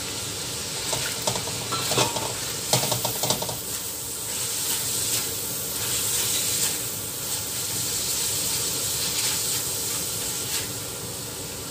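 Diced chicken sizzling in a wok as dried mushrooms are scraped in from a bowl with a silicone spatula, then stirred. A few light knocks and scrapes in the first few seconds, then steady sizzling that swells with the stirring strokes.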